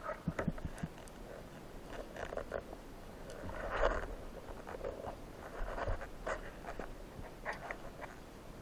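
Underwater sound through the housing of a camera mounted on a speargun: scattered clicks and scratchy scraping noises, with a louder rushing swell about four seconds in.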